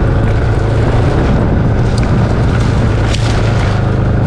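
Side-by-side utility vehicle's engine running as it drives over rough pasture, with rattling and a couple of knocks.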